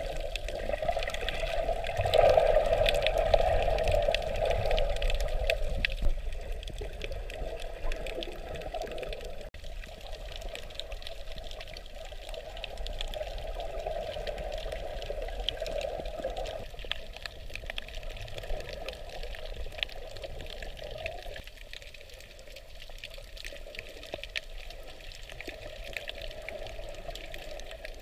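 Muffled rushing and sloshing of seawater picked up by a camera held underwater, with faint scattered clicks; it swells louder for a few seconds near the start, then settles to a steadier wash.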